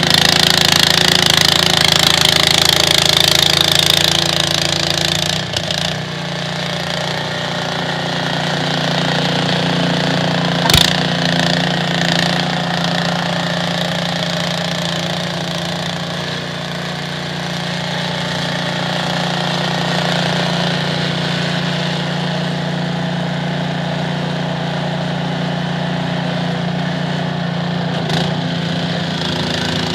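Snowblower's small engine running steadily, with a single sharp knock about eleven seconds in.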